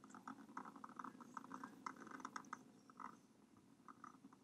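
Faint, irregular quick clicks and crackles, several a second, over a low steady hiss.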